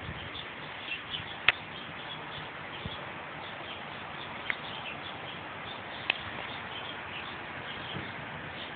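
Birds chirping over steady outdoor background hiss, with a few brief sharp chirps standing out.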